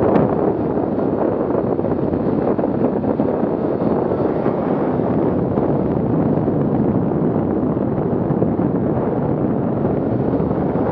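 Steady rush of wind on the microphone mixed with the running noise of a 2017 Arctic Cat M8000 snowmobile riding along a groomed trail at speed.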